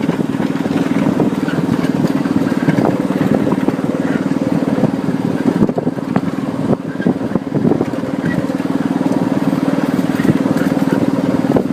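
Ride-on miniature train under way: a small locomotive engine runs with a steady drone, with scattered irregular clicks and knocks.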